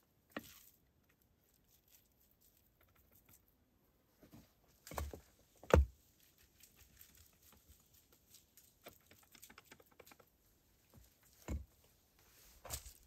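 Scattered light taps and ticks with a few louder knocks, the loudest a single sharp knock near the middle, like hand work with hard objects such as stones.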